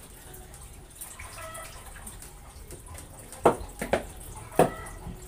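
Water splashing and pouring in a plastic basin as bowls are washed by hand and water is scooped with a dipper, with three loud splashes in the second half.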